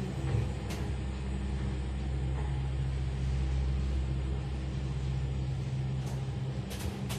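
Steady low mechanical hum and drone of a gondola lift moving slowly through its station, heard from inside the cabin, with a few faint clicks.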